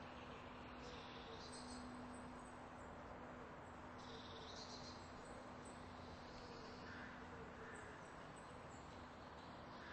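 Faint background noise with a steady low hum and a few brief high-pitched chirps, about a second in and again about four seconds in.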